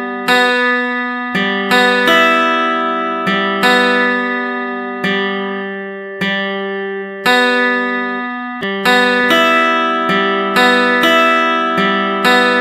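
Instrumental background music: slow, ringing chords, each struck sharply and fading away before the next, about one every second or so.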